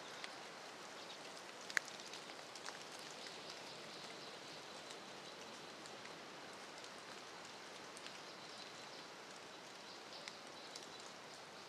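Light rain falling on a forest floor of fallen leaves: a steady hiss with scattered small ticks, and one sharper click about two seconds in.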